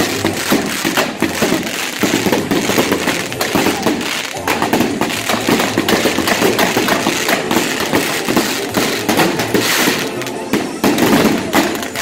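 Fireworks going off without a break: a dense run of rapid crackles and small bangs from a firework tower and fountains throwing sparks.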